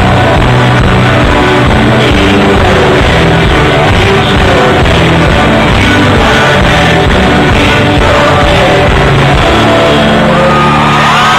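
Live folk-rock band with acoustic guitars, upright double bass and drums playing with group singing, very loud throughout; about ten seconds in the music breaks off and the crowd cheers and whistles.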